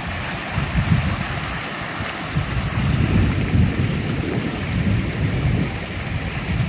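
Muddy flash-flood water flowing down a dirt channel, a steady rush, with gusty wind rumbling on the microphone that grows stronger a couple of seconds in.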